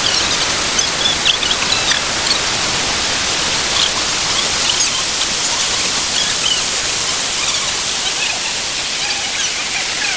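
Steady rushing of a waterfall pouring into a rocky pool, with a few faint short high sounds scattered over it.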